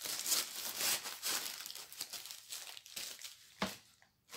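Plastic packaging of a diamond painting kit crinkling and rustling as it is handled, with a single sharp knock about three and a half seconds in.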